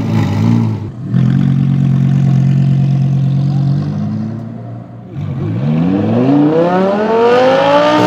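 Audi R8 GT's 5.2-litre V10 through a Larini aftermarket exhaust: a short rev blip, then a steady engine note for a few seconds, then from about five seconds in a hard full-throttle acceleration, its pitch rising steeply until it cuts off at the end.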